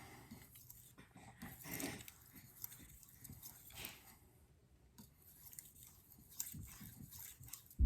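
Faint, irregular swishing strokes of a VG-10 kitchen knife being worked across a Shapton Pro 5K water stone.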